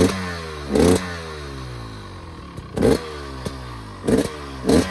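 GasGas EC300 GP 300cc two-stroke single-cylinder engine free-revving through a newly fitted Fisch spark arrestor on the stock exhaust. There are five sharp throttle blips, two close together at the start, one about three seconds in and two near the end, each falling back toward idle.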